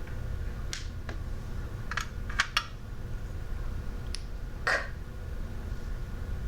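Light clicks and taps of small hard pieces, movable alphabet letters and little objects, being handled and set down on a table, several in an irregular run, over a steady low hum.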